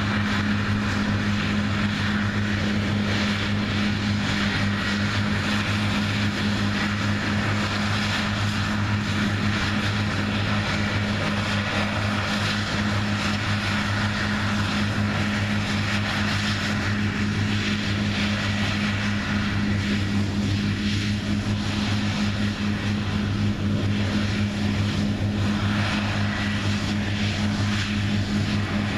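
New Holland CR9060 twin-rotor combine running steadily while harvesting soybeans. A constant deep engine hum sits over a broad, even rush of machinery noise.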